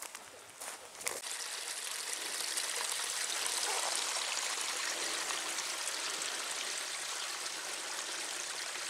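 A small stream running over stones: a steady rush of water that swells in about a second in, after a few footsteps on the grass.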